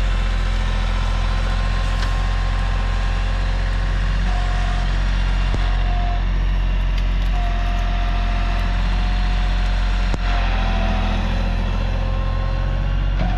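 Tractor engine running steadily under load while digging into a hillside. A high whine comes and goes over it several times, and there are a few sharp cracks.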